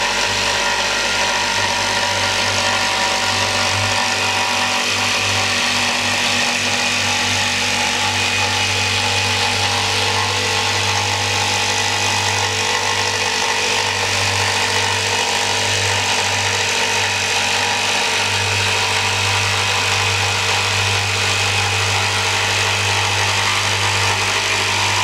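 Electric jigsaw running steadily while cutting a curved sink opening through a laminated chipboard kitchen worktop, a continuous motor whine with the buzz of the blade in the board.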